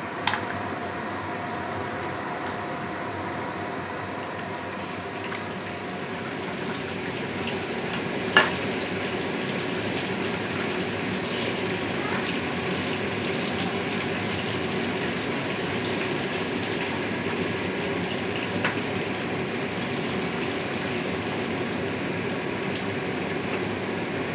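Salted potato pieces frying in hot oil in a kadai, a steady sizzle that grows a little louder about six seconds in. A single sharp knock comes about eight seconds in.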